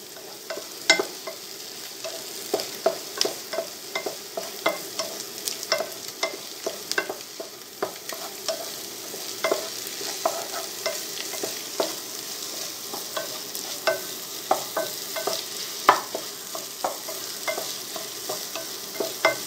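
A wooden spatula stirs and knocks against a pot while scrambled egg, onion and ginger-garlic paste sauté, over a steady sizzle of frying oil. The knocks come irregularly, about one or two a second.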